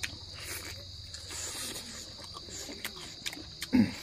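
Crickets chirring steadily, with short wet clicks of chewing and lip-smacking from people eating roast chicken by hand. A brief low sound near the end is the loudest moment.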